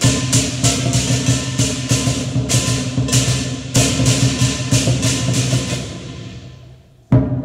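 Lion dance percussion: drum, cymbals and gong beating out about three strikes a second. After about four seconds the strikes thin out and the ringing fades away, then a loud strike restarts the beat near the end.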